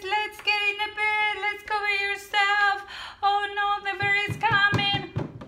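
A woman singing a simple tune in held notes without clear words. A few soft knocks sound near the end.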